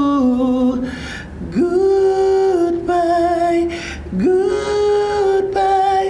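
A man singing a pop ballad a cappella, holding long vowels between lines, sliding up into a new held note about one and a half seconds in and again about four seconds in.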